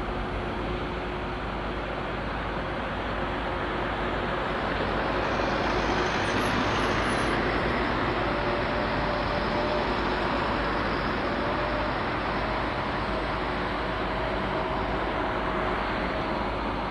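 Heavy diesel machinery engines running steadily, with a faint steady whine above the engine noise; the sound swells a little about five seconds in and holds there.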